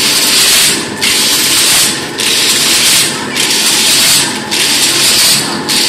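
Wire mesh weaving loom running: a loud hissing rush that comes in cycles of about one a second with brief breaks between, over a steady mechanical clatter.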